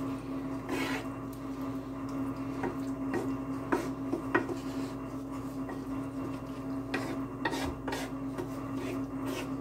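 Wooden spoon stirring crumbled sausage and tomato sauce in a deep nonstick skillet, with irregular scrapes and light knocks against the pan, over a steady hum.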